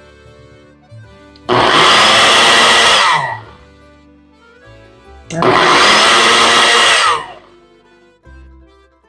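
Blender run in two bursts of about two seconds each, its motor whirring through a batch of roasted tomatoes and vegetables and falling in pitch as each burst stops. Soft background music plays between the bursts.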